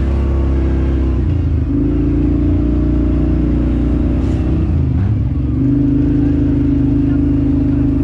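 An off-road vehicle's engine running steadily under way. Its speed drops about a second in, dips harder around five seconds in, then picks back up to a steady higher note.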